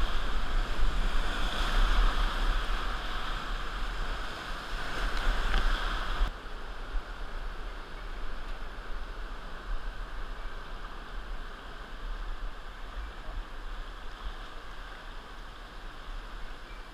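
Whitewater rapid rushing loudly around a kayak, with a low rumble of water buffeting the microphone. About six seconds in the rush drops abruptly to a quieter, steady flow of calmer river water.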